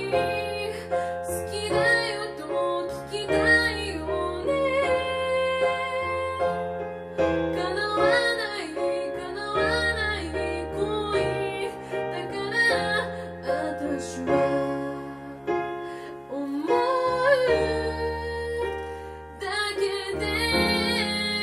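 A woman singing a slow ballad live while accompanying herself on an electric piano keyboard, chords and a bass line under her voice. Near the end her voice drops out and the keyboard carries on alone.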